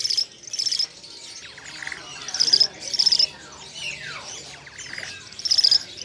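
Caged songbirds calling: pairs of short, high, trilled notes repeating about every two and a half seconds, with a couple of lower notes sliding downward in between.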